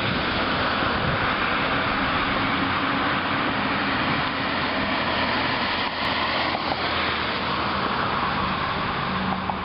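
Street traffic on a wet road: a steady hiss of car tyres on rain-soaked pavement, with the low hum of a South Shore Line electric interurban train approaching along the street track.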